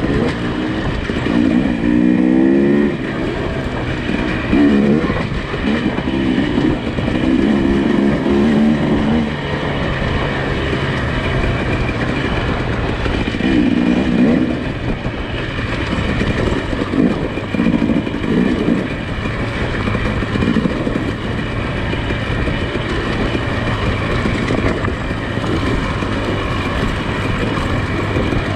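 Nissan Pathfinder engine running as the SUV works along a rough dirt trail. The engine hum is steady, with repeated short rises in revs.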